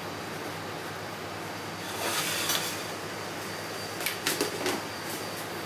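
Light clatter of a plate and utensils being handled over a steady kitchen background hiss: a brief scraping rustle about two seconds in, then a quick run of small knocks and clicks about four seconds in.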